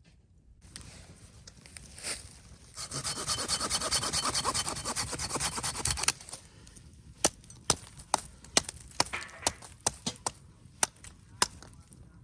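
Wood being sawn by hand: a loud, dense rasping stroke noise for about three seconds that stops abruptly, followed by a string of sharp separate cracks or clicks.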